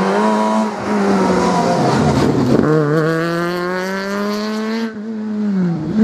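Fiat Punto Super 1600 rally car's naturally aspirated 1.6-litre four-cylinder engine running hard at high revs under acceleration. There is a gear change about two and a half seconds in, where the pitch drops and then climbs again, and the pitch falls away near the end.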